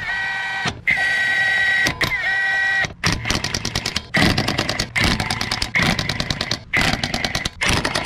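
Impact wrench running lug nuts onto a wheel. First comes a steady whine in short runs as it spins the nuts down, then, from about three seconds in, rapid hammering in repeated short bursts as it snugs each nut tight.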